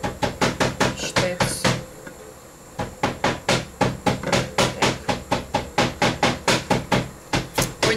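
Rapid, even knocks, about four a second, with a short break about two seconds in, then going on a little slower.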